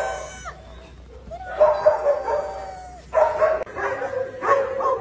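A dog whining and yipping: several short, high-pitched cries with pauses between them.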